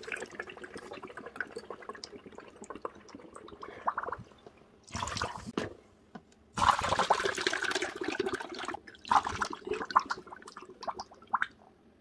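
Liquid poured from a jar through a plastic funnel into a plastic bottle, running in spells with a short pause, loudest about five and seven seconds in. A few small clicks and knocks follow near the end.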